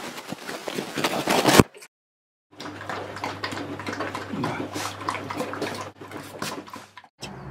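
Small dog eating from a stainless steel bowl: wet chewing and licking with small clicks. The sound drops out for under a second about two seconds in, then resumes over a steady low hum.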